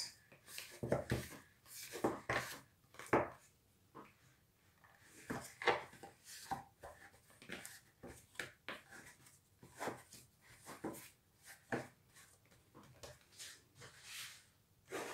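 Hands kneading sticky, freshly mixed bread dough in a plastic bowl: irregular short squelching and knocking sounds with brief pauses between them.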